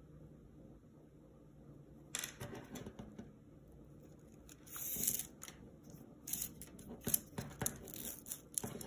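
Plastic pony beads clicking against each other, with cord rustling through them, as the beads are handled and threaded onto a kandi cuff. A run of small clicks and scrapes starts about two seconds in, with a brief louder rustle near the middle.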